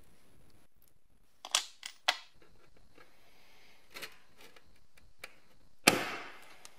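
Small metal scale parts and pliers being handled on a workbench while dismantling: two sharp clicks, a few light ticks, then a louder metallic clack near the end that trails off briefly.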